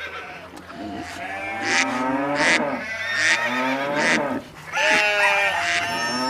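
Farm animals calling over one another, several wavering calls overlapping at once.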